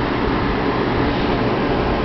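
Window air conditioner running with a steady, unbroken drone.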